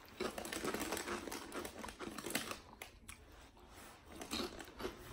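Soft, irregular crinkling and rustling of something being handled, a run of small crackles with no steady rhythm.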